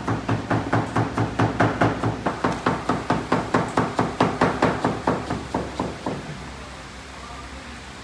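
A knife chopping on a wooden board in a quick, even rhythm of about five strokes a second. The chopping stops about six seconds in.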